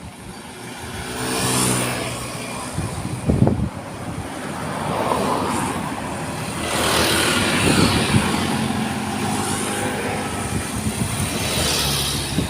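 Road traffic passing close by: several vehicles, trucks among them, go by one after another, engine and tyre noise swelling and fading with each pass.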